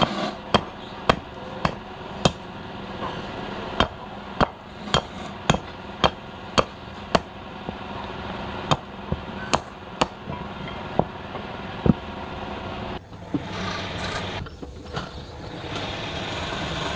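A curved chopping blade striking a wooden blank set on a stump, hewing its corners off: about eighteen sharp chops, mostly about two a second in short runs, with a steady machine hum beneath. The chopping stops about three-quarters of the way in.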